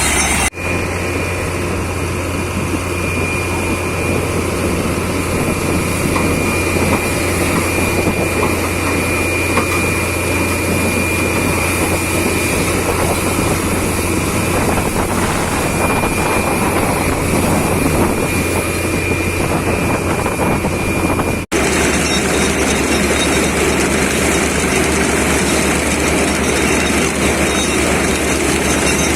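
Truck-mounted borewell drilling rig running steadily under load, a loud mechanical drone with a constant low hum and a thin steady whine. It breaks off for an instant twice, just after the start and about two-thirds of the way through.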